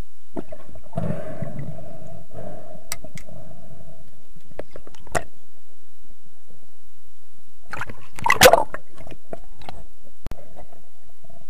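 Underwater sound picked up through an action camera's housing: a muffled low rumble with scattered clicks and knocks, and a brief louder rush of noise about eight seconds in. The sound drops out for a moment just after ten seconds, at an edit.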